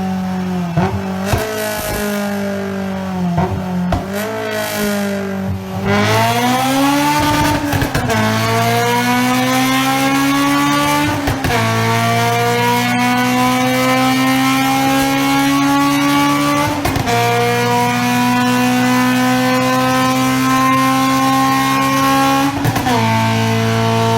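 Honda S2000's four-cylinder engine, revved in short blips at first, then accelerating hard through the gears: the pitch climbs steadily and drops sharply at each upshift, several times over.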